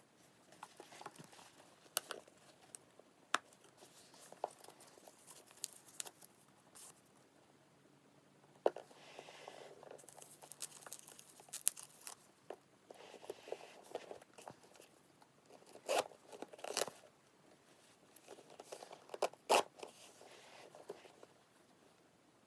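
Faint handling noise from a leather handbag being unboxed: crinkling and tearing of small packaging pieces and tags, in several short spells, with scattered sharp clicks and taps from the bag's hardware being handled.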